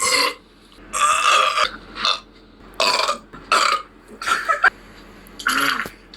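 A person burping over and over: about six burps, roughly a second apart, the first one the longest.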